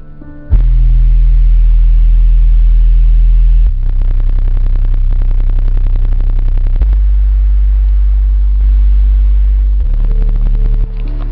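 Sony Xplod 1000-watt car subwoofer playing very loud, deep sustained bass tones that cut in suddenly about half a second in and step between a few low notes, with a fast buzzy pulsing over the bass in the middle stretch.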